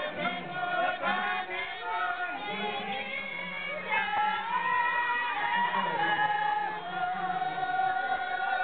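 A group of women singing a Mustang cultural dance song together without instruments, in long held notes.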